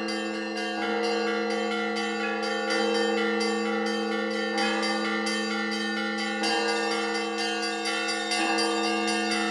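Church bells ringing in a continuous peal: several bells struck in turn, their tones overlapping and ringing on. A heavier stroke comes about every two seconds beneath quicker strikes of smaller bells.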